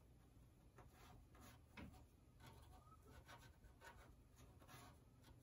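Faint, short scratchy strokes of a paintbrush dragging over a canvas board as it sketches in thin oil paint.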